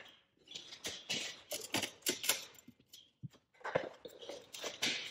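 Irregular rustles, scrapes and clicks of handling: gloved hands and a full face shield moving close to the microphone.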